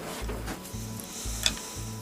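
Background music with a steady bass beat, and one sharp metallic clink near the end.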